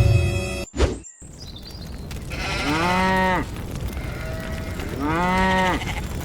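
A cow mooing twice, each call rising and then falling in pitch, after a brief loud thump near the start.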